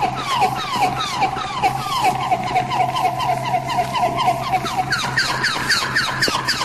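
Eerie bird-call sound effect: many short calls, each sliding down in pitch, repeating about three times a second in overlapping layers over a low steady hum.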